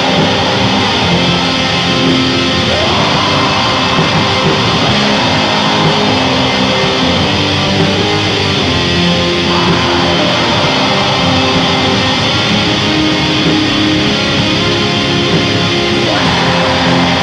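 Raw black metal: a dense, loud wall of distorted electric guitar over drums, shifting to a new chord every few seconds.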